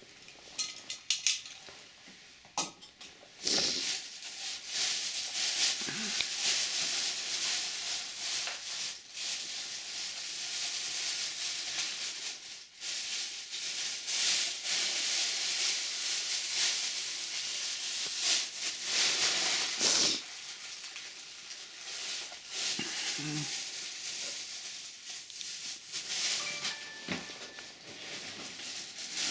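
Strong storm wind hissing in gusts, with a few knocks and clicks near the start. The wind swells about three and a half seconds in and eases after about twenty seconds.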